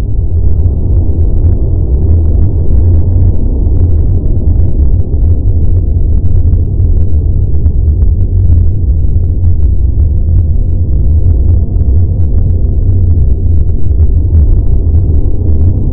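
Sci-fi spaceship cruising sound effect: a loud, steady deep rumble with a faint crackle above it.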